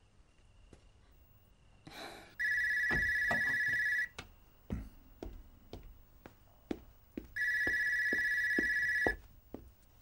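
Mobile phone ringing twice, each ring a steady electronic tone lasting nearly two seconds, with footsteps on the floor between the rings.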